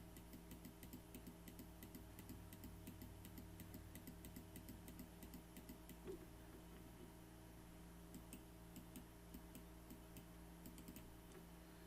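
Faint computer mouse and keyboard clicks, several a second at first and fewer after about eight seconds, over a low steady hum.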